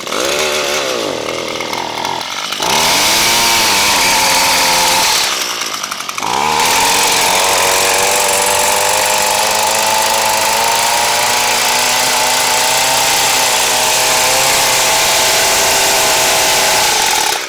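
Echo SRM230 extended-reach hedge trimmer's small two-stroke engine running. It is revved up and down a few times, held at full throttle for a couple of seconds, let back briefly about five seconds in, then held wide open again for about ten seconds. It keeps running under full throttle after its repair for a no-start, runs-and-dies fault.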